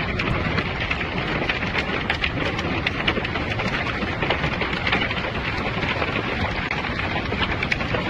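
Heavy hail and rain coming down: a steady rush of falling water dotted with many sharp ticks of hailstones striking.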